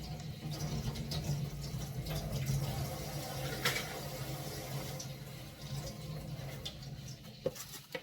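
Water running from a tap while a green mango is rinsed under it, a steady flow that stops near the end.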